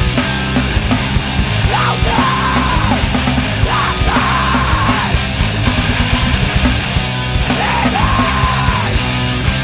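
Loud, heavy screamo music from a full band, with yelled vocals and a wavering high guitar line that comes back about every two seconds.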